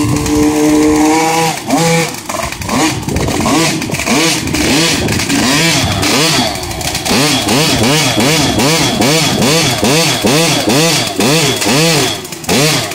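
Pocket bike's small engine being revved over and over: after one slow rise in pitch at the start, the revs swing up and down in quick throttle blips, about two a second.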